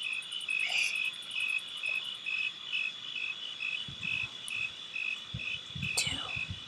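Insect chorus chirping: a steady high drone with a pulsed chirp repeating about two to three times a second. Soft low thumps come in during the second half, and a quick falling whistle sounds near the end.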